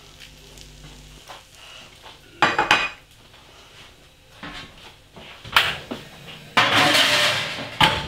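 Metal oven tray and kitchen utensils clattering as the cooked chicken chunks are dished up off the tray: a quick run of sharp clatters a couple of seconds in, another a few seconds later, and a longer scraping clatter near the end.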